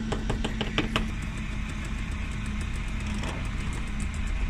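A vehicle engine idling steadily, with a quick run of ticks in the first second.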